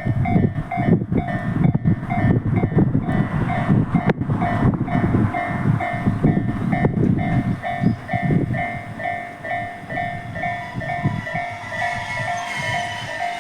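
Level-crossing warning bell ringing at a steady rate of a little over two strikes a second, while a Tobu Railway train passes with a low rumble and wheel clatter. The train noise fades after about eight seconds while the bell keeps ringing.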